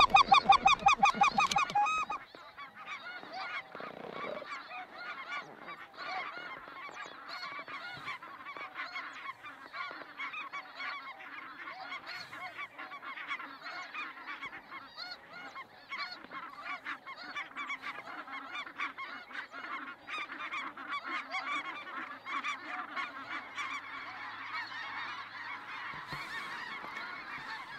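A large flock of snow geese calling overhead, a dense chorus of many overlapping high calls. The calling is loud and close for the first two seconds, then settles into a fainter, steady chorus.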